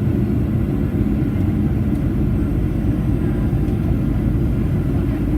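Cabin noise inside a Boeing 737-800 airliner: a steady, even low rumble from its engines, with no change in pitch or level.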